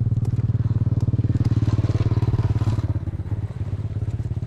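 Backpack electrofishing machine buzzing: a loud, rapid pulsing drone that is strongest in the first few seconds and eases slightly about three seconds in.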